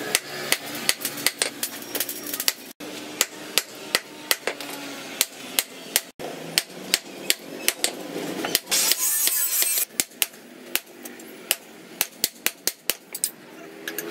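Hammer blows on a red-hot steel axe head against an anvil: a quick, even run of sharp metallic strikes, about three a second, as the head is forged.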